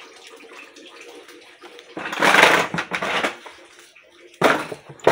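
Two loud bursts of rushing noise on the phone's microphone as it is carried by hand outdoors. One comes about two seconds in and lasts just over a second, and a shorter one comes near the end, both over a faint steady hum.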